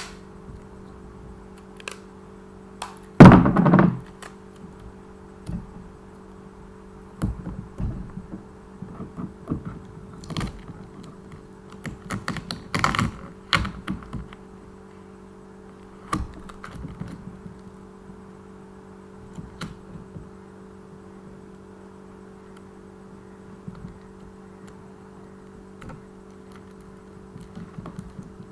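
Small handling noises from craft work: scattered taps, clicks and rustles, the loudest a rustle about three seconds in, with a cluster of clicks around the middle, over a steady low hum.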